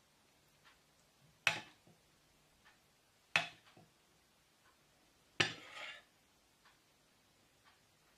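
A metal spoon clinking against a ceramic soup bowl while scooping soup: three separate clinks about two seconds apart, the third trailing on briefly for about half a second.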